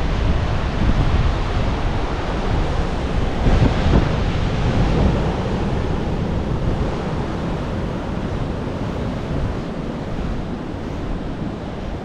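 Ocean surf breaking and washing along a rocky shore, with wind rumbling on the microphone. The surf swells louder about four seconds in, then eases off.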